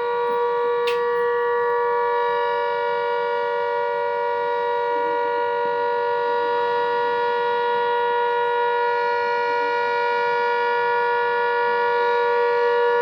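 Civil defence siren sounding a blackout alert, held on one long steady note that neither rises nor falls, growing slightly louder near the end.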